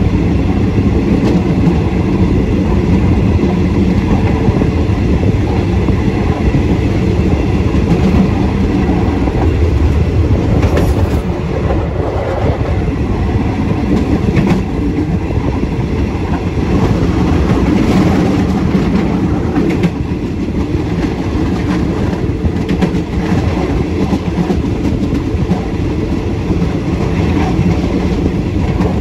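Passenger train running along the line, its carriage wheels giving a steady rumble with an irregular clickety-clack over the rail joints, heard from the rear of the last carriage.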